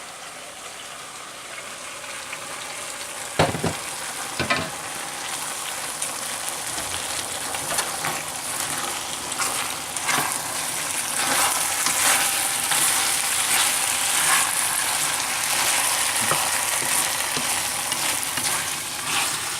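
Chicken, green beans and ramen noodles sizzling in a hot wok with freshly added stir-fry sauce, the sizzle growing louder as they are stirred. A utensil knocks sharply against the wok twice, about three and a half and four and a half seconds in, with smaller scraping clicks of stirring throughout.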